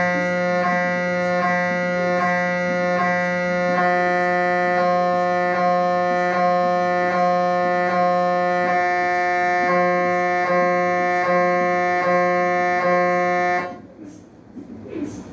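MRI scanner's gradient coils buzzing on one steady pitch during a scan sequence, with a faint beat about every three-quarters of a second. The buzz starts abruptly and cuts off suddenly about a second and a half before the end.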